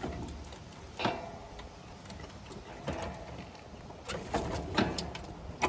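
A few sharp clicks and knocks over a steady low hum: a single knock about a second in, another around three seconds, and a cluster toward the end.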